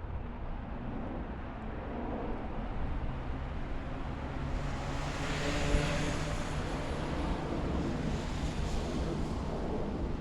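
Jet aircraft flying past: engine noise builds to its loudest about six seconds in, with a faint high whine, then slowly fades over a steady low rumble.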